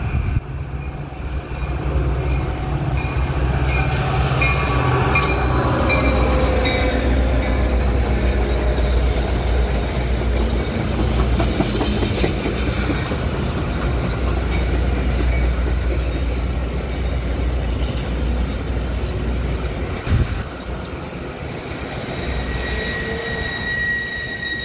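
Metra commuter train of bilevel gallery cars passing close by at speed: a steady loud rumble and clatter of wheels on the rails, with a pitch that falls a few seconds in and some high wheel squeal near the end.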